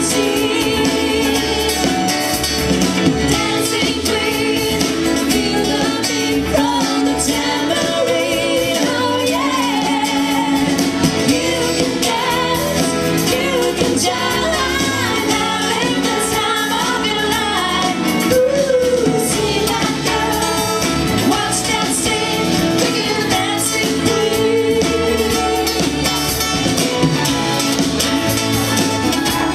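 Live pop band playing a song: singing over acoustic and electric guitars, keyboards and drums.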